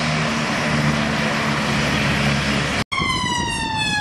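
Steady, loud rotor and engine noise of the Rescue 199 search-and-rescue helicopter. About three seconds in it cuts off abruptly to an emergency vehicle's siren wailing, its pitch slowly falling.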